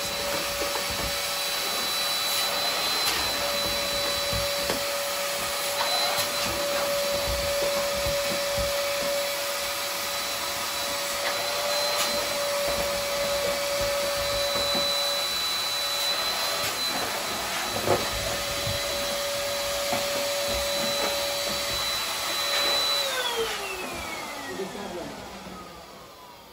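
Small electric blower motor running steadily with a high whine. Near the end it is switched off and its pitch falls as it winds down.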